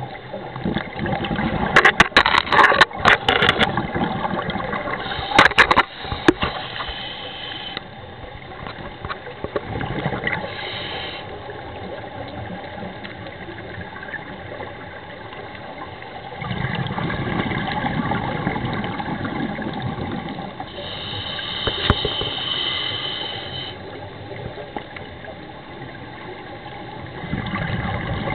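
Scuba regulator breathing picked up underwater: hissing inhalations and low bubbling exhalations surging every several seconds. A cluster of sharp clicks, the loudest sounds, comes in the first few seconds.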